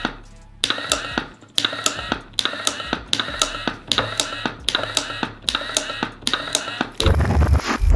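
Battery-powered wooden useless box in action: its toggle switch is flicked over and over, each click followed by the brief whir of its small motor as the arm pops out and flips it back, about one cycle a second. A louder low rumbling thud near the end.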